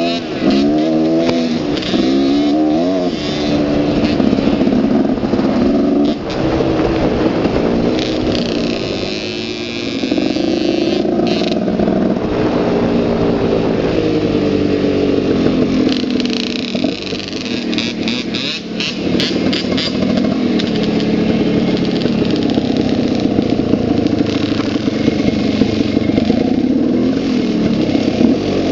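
Dirt bike engine being ridden, its pitch rising and falling again and again with the throttle and gear changes, with a few knocks and rattles about two-thirds of the way through.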